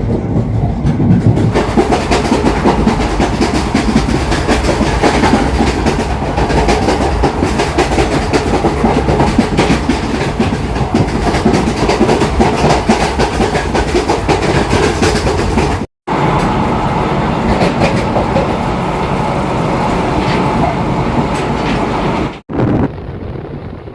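Passenger train running at speed on the Konkan Railway line: steady rumble and rattle of the coaches with the clickety-clack of wheels over rail joints. The sound cuts out for a moment twice, about two-thirds of the way in and near the end, and is quieter after the second break.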